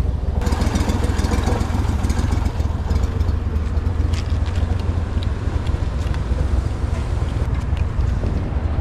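Small boat's outboard motor running steadily at low throttle.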